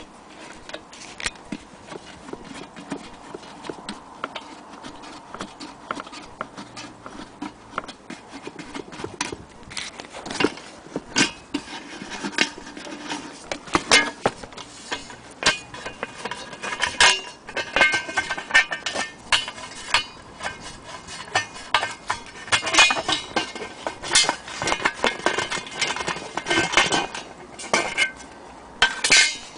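Irregular clicks, knocks and clinks of hard objects being handled. They are sparse at first and much busier from about ten seconds in.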